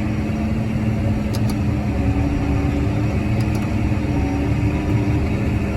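Tractor engine running steadily in a high road gear, around 9th or 10th, while pulling a loaded grain wagon of soybeans.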